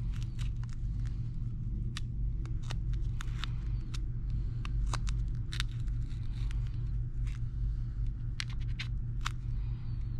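Thin metal pry tool clicking and scraping against the edge of an Apple Watch Series 3 as it is worked under the screen to loosen the adhesive: irregular sharp little clicks, several a second, over a steady low hum.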